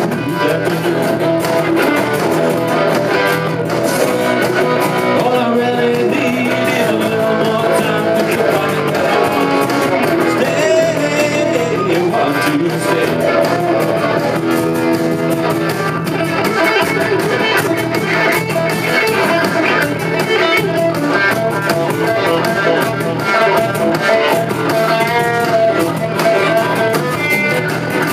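Live band playing a song, electric guitars to the fore.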